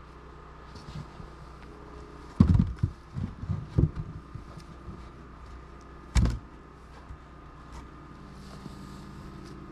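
Heavy knocks and thuds of a big log being levered and rolled by hand: a cluster of several hits about two and a half seconds in, then one more loud knock around six seconds in, over a steady low hum.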